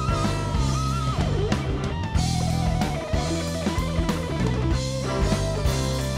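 Live rock band playing an instrumental passage: an electric guitar lead holds notes with vibrato and bends down about a second in, over a drum kit and bass.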